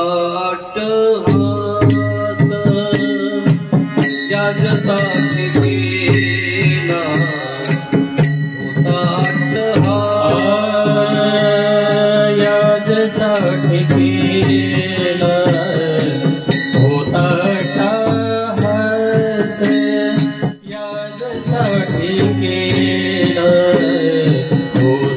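A man singing a Marathi devotional kirtan tune (chal) in long held, winding notes, with small brass hand cymbals (taal) struck in a steady beat.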